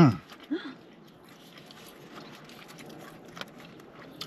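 A short hum with falling pitch, then quiet mouth sounds of chewing a sandwich and the faint crinkle of its paper wrapper, with a couple of small clicks.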